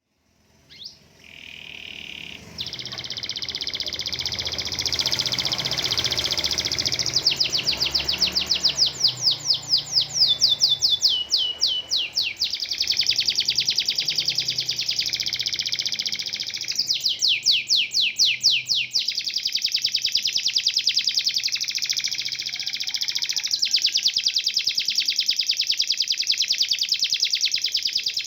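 Domestic canary singing one long unbroken song of fast trills and rolls, with runs of rapid sharp repeated notes. The uploader finds it more like a cililin, woodpecker or tengkek buto than a typical canary.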